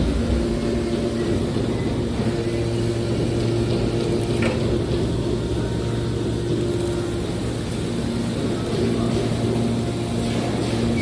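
Steady hum of machinery running, typical of a hydraulic scrap metal baler's power unit, with a constant low drone and a noisy hiss over it.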